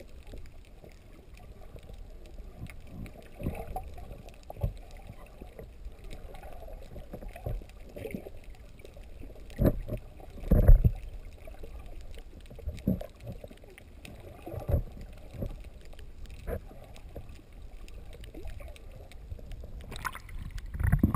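Muffled underwater sound heard through a camera's waterproof housing: a low rumble of moving water with scattered dull knocks, the loudest about ten and a half seconds in. Near the end the camera breaks the surface and water splashes and sloshes more brightly.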